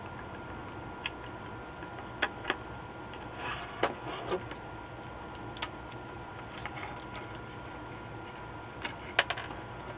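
Scattered sharp clicks and light scratchy taps from a soldering iron and a circuit board being handled while capacitors are desoldered, over a steady faint hiss with a thin high tone.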